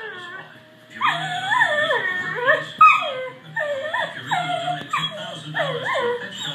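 Shetland sheepdog whining and yipping, a run of high-pitched cries that each fall in pitch, about two a second, starting about a second in.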